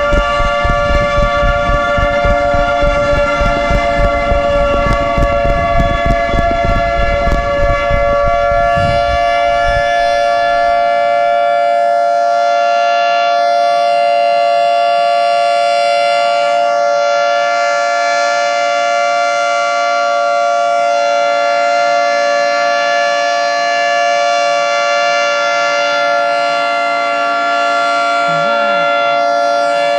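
Federal Signal 3T22 three-tone electromechanical outdoor warning siren sounding its steady Alert tone: a loud, unbroken chord of several pitches. A low rumbling noise under it fades out about ten seconds in.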